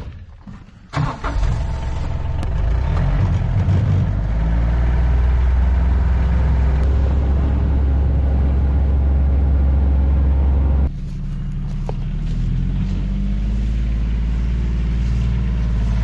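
John Deere Gator XUV 855D utility vehicle's three-cylinder diesel engine pulling away and running at speed, heard from the open cargo bed. A thump about a second in, then the engine note builds and holds steady; about eleven seconds in it changes suddenly to a quieter engine note that climbs again near the end.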